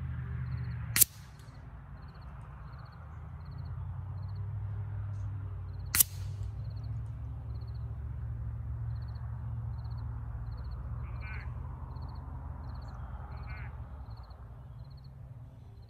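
Two sharp cracks of shots from a .25 caliber Air Venturi Avenger regulated PCP air rifle, about a second in and again about five seconds later, the first the louder. Faint regular chirping and a low steady rumble lie underneath, with a bird calling twice near the end.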